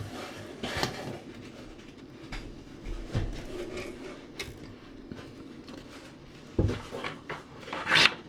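Scattered knocks, scrapes and rattles of hard parts being handled and worked loose at the back of a new washer dryer, with a heavier knock about six and a half seconds in and a sharp scrape near the end.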